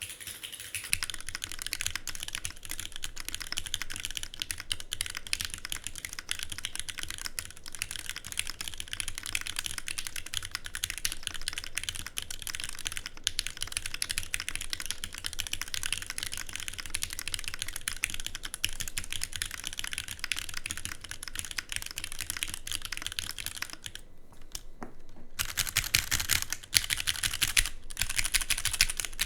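Fast, continuous typing on a custom aluminum mechanical keyboard with lubed Gateron X linear switches on 54g springs and GMK Dolch doubleshot keycaps. The typing stops briefly near the end, then resumes a little louder.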